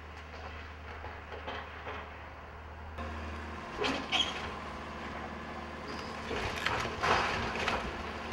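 Heavy demolition machinery running with a steady low engine hum, and scattered clanks and scrapes of debris about four seconds in and again near the end.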